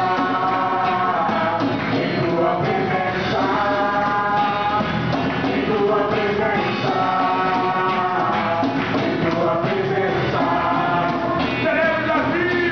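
Christian worship song with a rock-style band and several voices singing long held notes.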